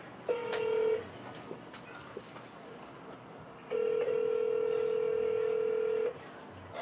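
Telephone ringback tone over a smartphone's speakerphone, the steady buzzing ring of the called number. A short ring comes right at the start, and a longer ring of about two and a half seconds starts about midway.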